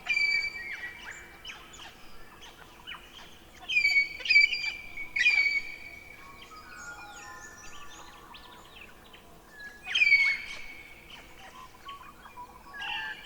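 Birds calling: loud chirping phrases with sharp falling notes come just after the start, again around four to five seconds in and around ten seconds in, with quieter chirps between them.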